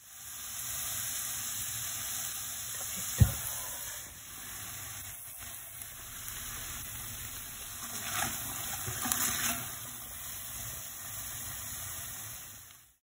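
Diced onions, tomatoes and green peppers sizzling in oil in a frying pan. A single sharp knock comes about three seconds in, and a few louder crackles come around eight to nine seconds in.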